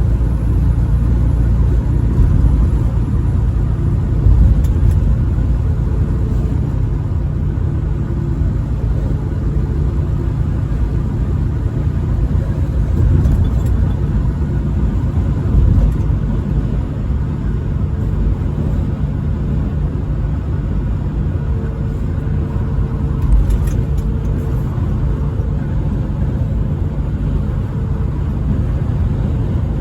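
Vehicle driving on an interstate highway: a steady low rumble of engine and road noise.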